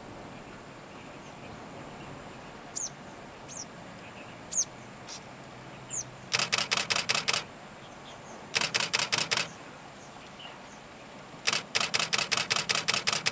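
Camera shutter firing in rapid bursts of continuous shooting, three runs of quick, evenly spaced clicks lasting one to two seconds each, beginning about six seconds in. Before the shutter starts, a bird gives a few short high chirps.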